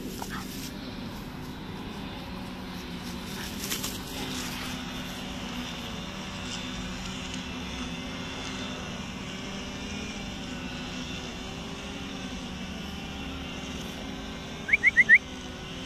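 A steady distant engine drone, wavering slowly in pitch. Near the end come four quick, loud, high chirps.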